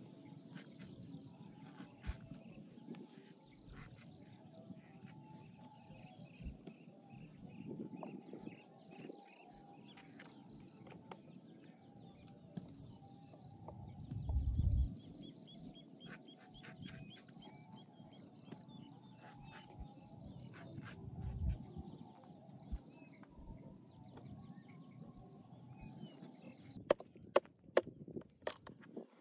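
Animal chirping: short groups of a few quick high chirps, repeating about every second and a half over a low rumble. Two louder low thumps come midway, and a few sharp clicks near the end.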